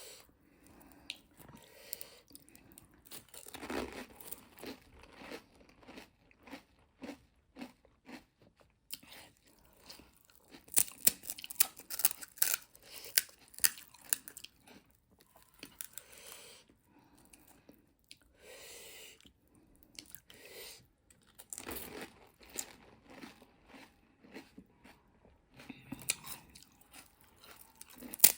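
Close-up crunching and chewing of crisp, hollow pani puri shells, with a run of louder crunches in the middle.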